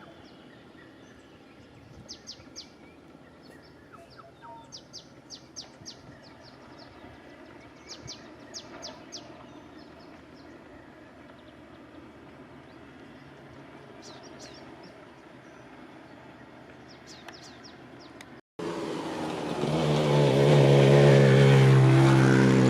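Small birds chirping, with quick runs of short, high calls over a quiet background. About eighteen seconds in, the sound cuts abruptly to a much louder steady engine drone that swells and then holds.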